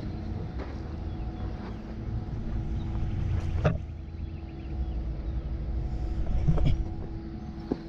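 Heavy diesel truck engines running: a steady low rumble with a constant hum. A few sharp knocks come through, the loudest a little over halfway.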